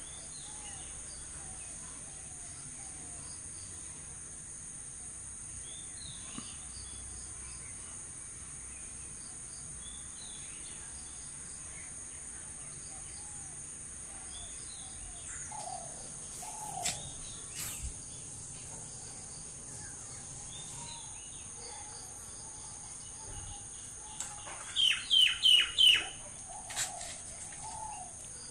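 Birds chirping now and then over a steady high drone of insects, with a louder run of about five sharp, quick calls near the end.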